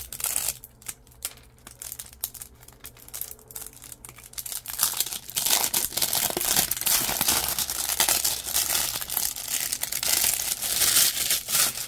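Plastic shrink-wrap on a CD jewel case being picked open and peeled off. There are a few scratchy clicks at first, then from about five seconds in a loud, continuous crinkling and tearing of the plastic film, which stops just before the end.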